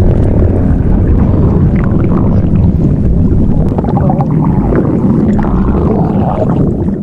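A person's stomach growling loudly: one long, continuous low rumble with gurgles through it, which stops at the very end.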